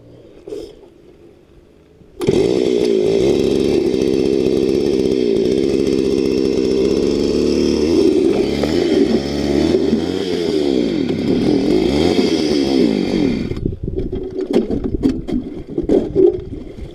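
Gas-powered ice auger's small engine starting up about two seconds in and running hard, its pitch wavering as it bores through thick ice. It drops off near the end, leaving irregular knocks.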